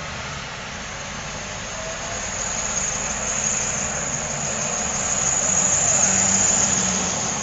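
Street traffic: motor vehicle engines running and passing close by, growing louder toward the end.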